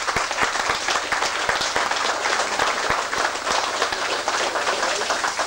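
A small crowd applauding, many hands clapping together without a break.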